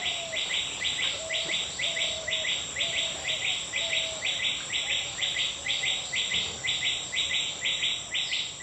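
Nature ambience of insects and a bird: a rhythmic insect trill pulsing about four times a second over a steady high insect whine, with a bird's short falling whistled notes about once a second.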